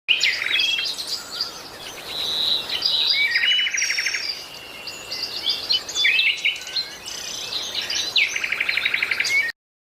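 Songbirds singing and chirping, with many short whistles and calls and a fast buzzy trill twice, the second near the end. The sound cuts off suddenly just before the end.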